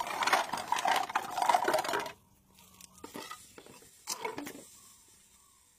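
Dry animal horns clattering and rattling as they are tipped out of a jute sack onto paved ground, for about two seconds. Then it goes almost quiet, with a few single knocks as horns are handled about a second and two seconds later.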